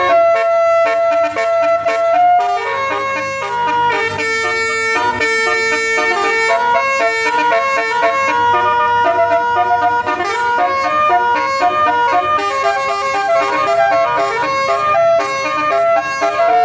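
Bus 'telolet' musical air horn playing a tune: several horn tones held and stepping up and down in pitch, sounding without a break.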